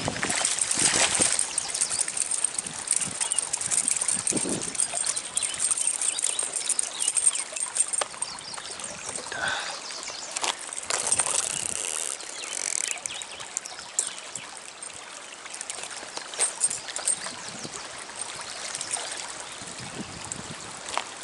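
Trout stream water running and trickling, with many scattered small clicks and knocks and a thin high-pitched tone through the first several seconds.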